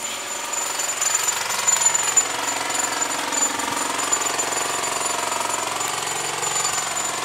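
A loud, steady machine noise, jackhammer-like, that swells over the first second and then holds, its pitch wavering slowly.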